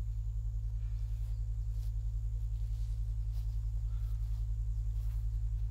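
A low, steady drone with a fast even pulse, the sound-design bed of a horror film, with faint scattered ticks and rustles above it.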